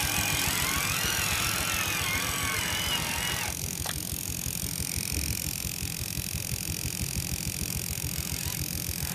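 Radio-controlled 6x6 truck's small electric motor and gearbox running over a constant low gear rattle. The motor whine rises and falls with the throttle, then after an abrupt cut about three and a half seconds in it holds one steady pitch.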